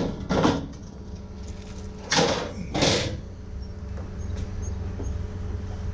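Metal rear-step filler panel of a box truck being lifted and hooked into place: a few short clunks and scrapes, the loudest two about two and three seconds in, over a steady low hum.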